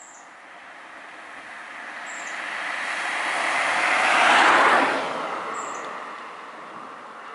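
Small Toyota hatchback driving past on an asphalt road: its tyre and engine noise swells to a peak about four and a half seconds in, then fades away.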